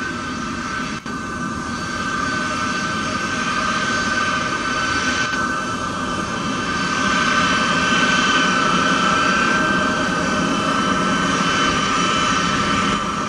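Boeing C-17 Globemaster III's four Pratt & Whitney F117 turbofan engines at taxi power, a steady high whine over a broad jet rumble that swells a little midway as the aircraft turns past.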